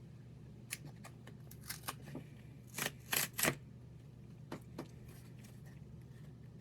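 Cardboard pie carton being pulled open at its side tabs: a series of short crackles and papery rustles, with the loudest three close together about three seconds in.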